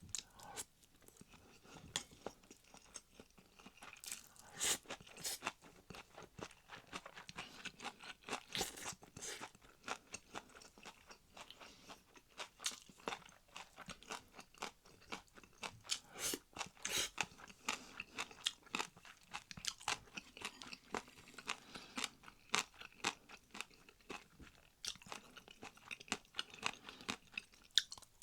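A person chewing and crunching food, close to the microphone: a long run of small, irregular crisp crunches.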